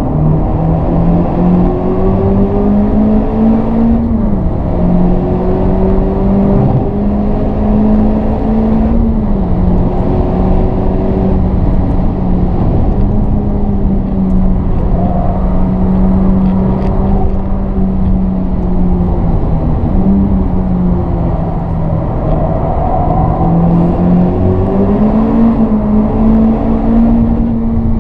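Honda Civic Type R FK8's 2.0-litre turbocharged four-cylinder heard inside the cabin, pulling hard under acceleration. Its pitch climbs and drops sharply with upshifts about four and nine seconds in, then holds steady at high speed, over steady road noise. It climbs once more and starts falling away near the end as the car slows.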